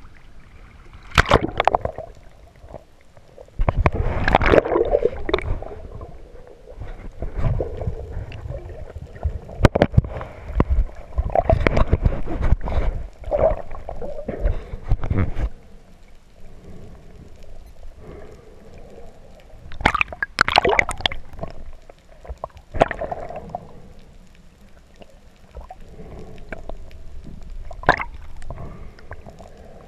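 Water sloshing and gurgling around a camera held at and below the sea surface, coming in irregular surges with muffled low rumbles and sharp clicks.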